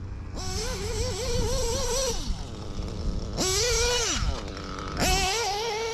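Nitro RC car's O.S. B7TT engine with a Hipex 2108 tuned pipe revving in three bursts, its pitch wavering up and down under throttle and dropping back as it lets off between bursts.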